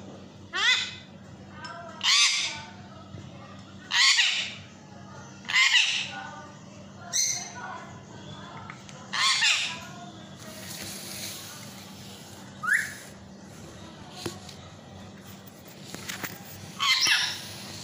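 Lutino Indian ringneck parakeet calling with a series of short, loud squawks, one every one and a half to two seconds at first, then more spaced out.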